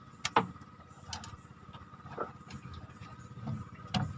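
Fishing reel mechanism clicking: a few sharp, irregular clicks.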